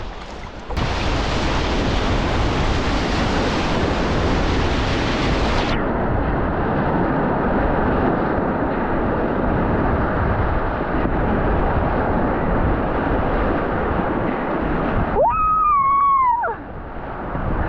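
Rushing whitewater of a river rapid: a loud, steady wash of water noise with wind on the microphone, losing its hiss about six seconds in. Near the end a person lets out one long, high whoop that rises and then falls.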